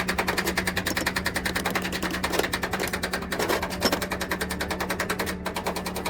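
Rapid, even mechanical ticking, about eight a second, over a steady low hum. It briefly drops out about five and a half seconds in.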